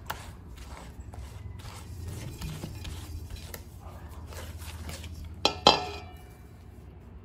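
Silicone spatula stirring and scraping thick cookie dough in a stainless steel mixing bowl: soft scrapes with light clicks. About five and a half seconds in, a louder ringing clink from the metal bowl.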